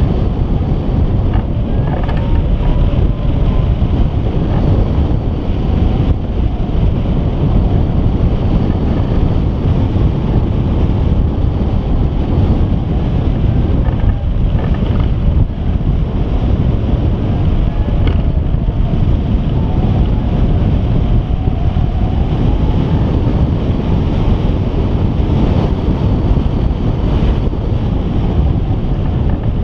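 Steady, loud rush of airflow buffeting the microphone of a camera mounted on a hang glider in flight.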